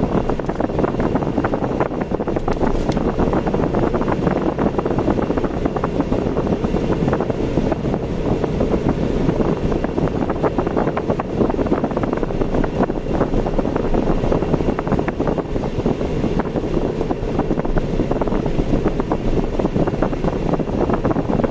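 Steady noise of a car driving, road and engine noise mixed with wind buffeting the microphone, unbroken throughout.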